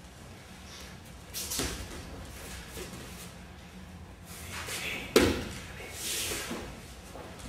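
Cloth swishing from aikido uniforms (gi and hakama) as the partners move, then a sharp slap about five seconds in as the attacker's body hits the tatami mat in a takedown, followed by another short rush of swishing noise.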